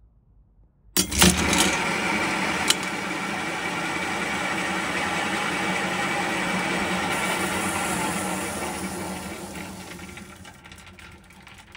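Bicycle wheel and chain drive of a pulse engine prototype set spinning with a few sharp clicks about a second in, then running steadily and winding down over the last few seconds.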